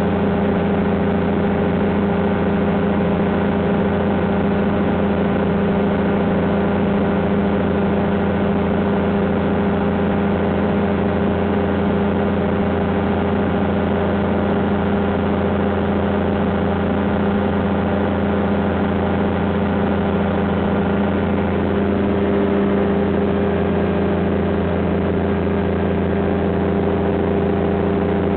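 Light aircraft's piston engine and propeller droning steadily in cruise, heard from inside the cabin. The note shifts slightly about three-quarters of the way through.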